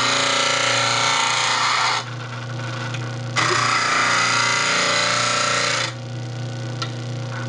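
Bench grinder motor running while a skew chisel is held flat on the tool rest and pressed to the wheel to grind its bevel. A loud grinding hiss lasts about two seconds, then only the motor's steady hum. A second pass follows for about two and a half seconds, and the hum alone again near the end.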